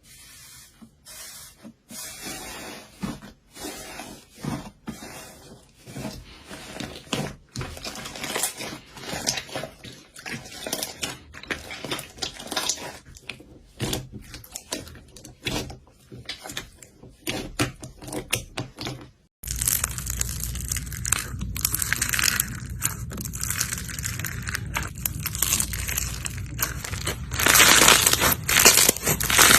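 Slime being squeezed, stretched and poked by hand, giving quick sticky clicks and crackles in short runs. After about 19 seconds a steady low hum comes in beneath denser crackling, which is loudest near the end.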